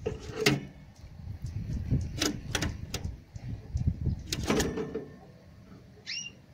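Clicks and knocks on a wire birdcage over a low handling rumble. About six seconds in comes a single short upward-sliding call from a crossbill.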